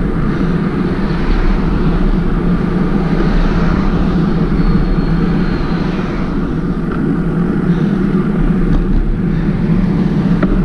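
Steady rushing wind and road noise while riding a bicycle, with no breaks.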